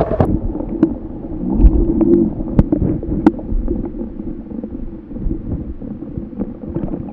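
Muffled underwater sound picked up by a submerged camera: a low, rumbling wash of river water with scattered sharp clicks and knocks as hands handle a smallmouth bass close to the camera.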